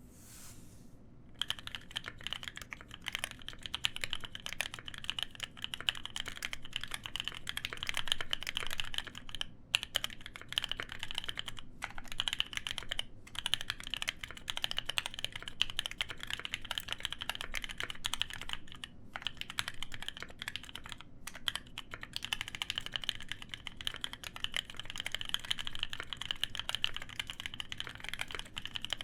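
Steady typing on an Iron165 FE custom mechanical keyboard with lubed NovelKey Cream linear switches, a copper plate and Cherry KA1953 keycaps: a dense stream of keystrokes that starts about a second in, with a few brief pauses.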